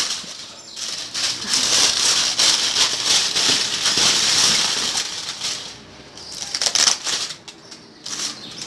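Aluminium foil crinkling and rustling as it is peeled off hot roasted lamb shanks, an irregular crackle that dips about six seconds in and flares again a second later.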